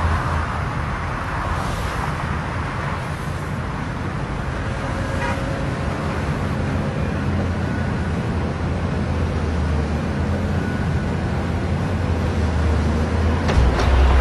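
Steady low rumble of city street noise, swelling slightly toward the end.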